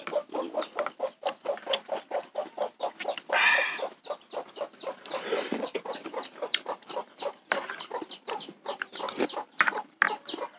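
Close-up mouth sounds of eating bakso noodles and meatballs: wet chewing and a couple of brief slurps, with rapid clicking throughout. Chickens cluck in the background.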